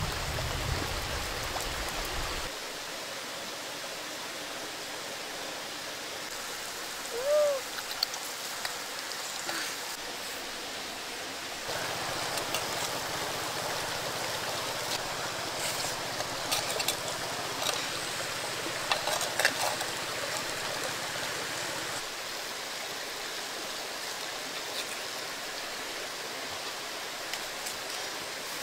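Steady rushing of a stream, with scattered light clicks and one short chirp about seven seconds in.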